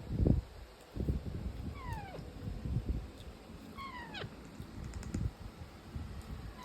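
A pet parrot giving two short, meow-like cries, each falling steeply in pitch, about two seconds apart, with low knocks and rustling around them.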